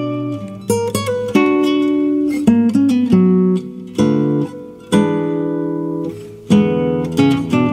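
Solo classical guitar music: plucked chords and melody notes, each note struck and ringing away before the next.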